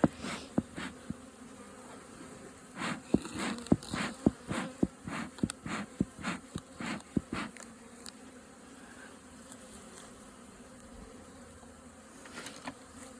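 Honeybees buzzing at an open hive, a steady low hum. Over the first half it is broken by many sharp clicks and knocks of hive parts being handled, which stop about seven seconds in, leaving only the hum.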